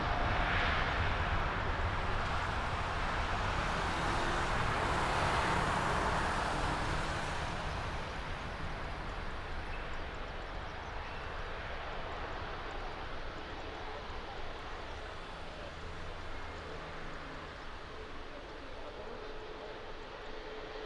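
Boeing 787-9 Dreamliner's twin jet engines at takeoff power during the takeoff roll. It is a steady, even engine noise, loudest for the first several seconds, then slowly fading as the airliner draws away down the runway.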